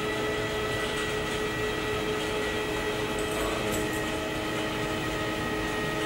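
Steady hum of mechanical-room machinery around a water heater and its piping, with several constant whining tones over an even background noise.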